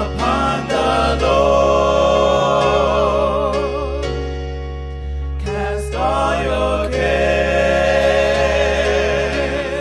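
Gospel singing with electronic keyboard accompaniment: voices holding long wavering notes over a steady bass. The voices break off briefly about five and a half seconds in.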